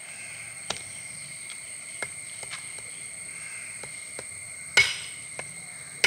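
Hand axe chopping a buffalo leg bone laid on a wooden log block: several light strikes, then a heavy blow nearly five seconds in and another at the end.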